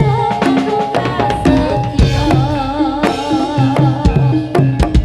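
Live Javanese gedrug music played loud through a sound system: steady hand-drum beats under a pitched melody line, which wavers in a fast vibrato about halfway through.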